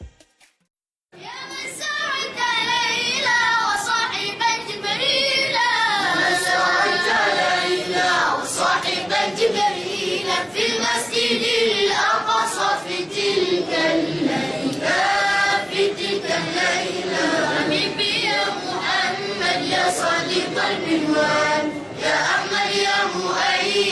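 A group of children singing an Arabic sholawat together, a devotional song praising the Prophet Muhammad; the singing starts about a second in, after a brief silence.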